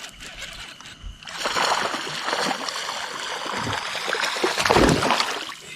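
Water splashing and churning at the surface beside the boat, as a hooked bass fights on the line. It starts about a second in and is loudest near the end.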